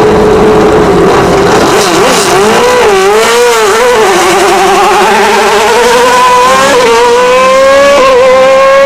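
Hillclimb race car engine at high revs, its pitch wavering up and down at first as the throttle is worked. It then climbs steadily under acceleration, with two quick upshifts near the end.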